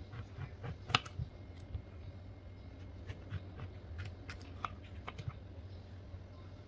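A kitchen knife cutting through oranges on a wooden cutting board: scattered soft cuts and taps of the blade and fruit on the wood, the sharpest knock about a second in.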